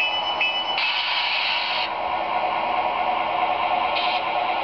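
Factory MRC sound decoders in HO-scale Athearn Genesis F3 diesel locomotives playing a steady diesel engine sound through their small, tinny speakers. A bell rings a few times a second and stops early on. A hissing burst lasts about a second from about a second in, and a shorter one comes near the end.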